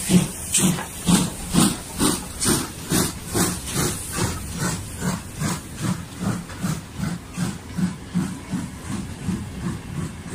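Steam locomotive pulling away under load, its exhaust chuffing in regular beats. The beats quicken from about two a second as the train gathers speed, and fade a little as the engine draws away.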